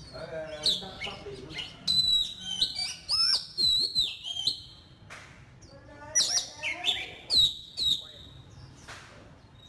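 Oriental magpie-robin singing: a varied song of clear high whistles, quick rising and falling notes and lower, buzzier notes, in three phrases, the last ending about two seconds before the end.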